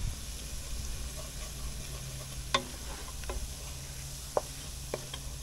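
Wooden spoon stirring a flour-and-butter roux with tomato paste and sweated vegetables in a stainless steel pot over medium-low heat, with a low sizzle and a few sharp taps of the spoon against the pot.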